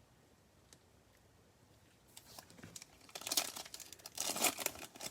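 A trading card pack's wrapper being torn open and crinkled by hand, starting about two seconds in and getting louder and busier near the end.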